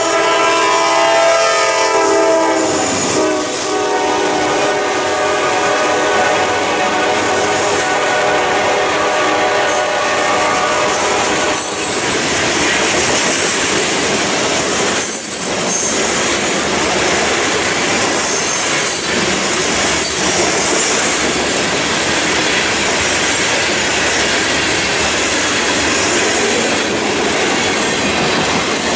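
Norfolk Southern freight train at a grade crossing: the locomotive's air horn sounds as a chord for the first few seconds and fades out. Then the covered hopper cars roll past with a steady noise of wheels on rail.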